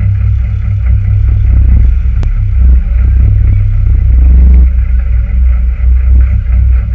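Citroën Saxo VTS N2 rally car's 1.6-litre 16-valve four-cylinder engine running while stationary at the stage start, heard loud from inside the cabin as a steady deep rumble.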